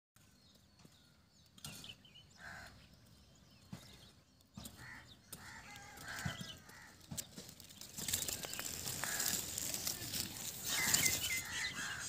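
Leaves and twigs rustling, with short bird chirps scattered through; the rustling grows louder in the second half, and a cluster of chirps comes near the end.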